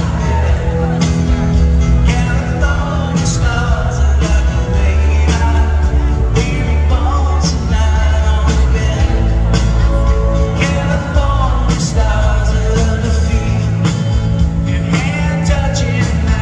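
A live rock band plays a country-rock song, a man singing lead over strummed acoustic guitar, bass and drums. It is loud and is heard from the audience.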